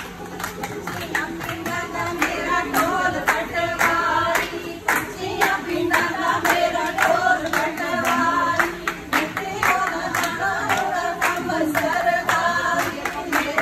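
A group of women singing a Punjabi giddha song together over steady rhythmic hand-clapping, about two claps a second.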